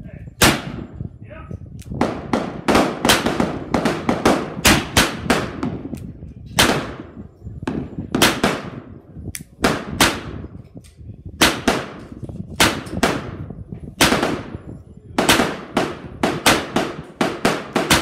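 A rapid, irregular run of about two dozen gunshots, each with a ringing echo. Among them are shots from a .45 Colt single-action revolver. There are far more shots than one six-shot revolver could fire, so other shooters on the range are firing too.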